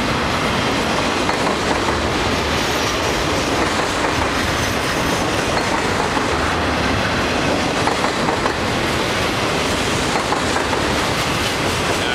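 Double-stack intermodal well cars of a Canadian Pacific freight train rolling past, their steel wheels on the rails making a steady, unbroken noise.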